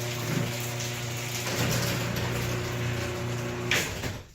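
Garage door opener running steadily with a mechanical hum as the door closes. The run ends near the end with a loud clunk, then the motor stops.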